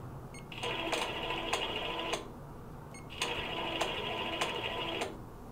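Longarm quilting machine stitching in two runs of about one and a half and two seconds, with a short pause between, during free-motion thread painting. It makes a steady whirr with scattered clicks.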